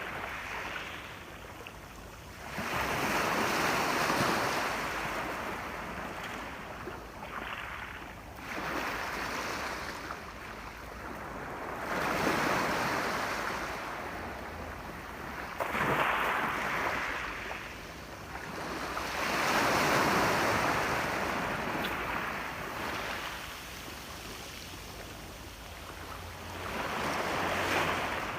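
Ocean surf: waves breaking and washing onto the shore. Each wave swells and fades, about every four to five seconds, over a steady rush of water.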